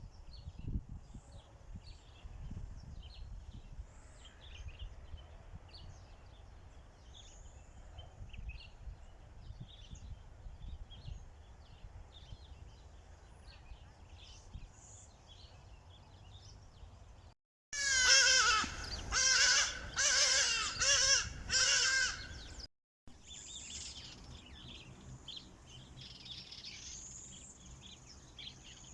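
Faint chirping of small birds over a low rumble of wind. About two-thirds of the way in come about five loud, harsh bird calls in a row.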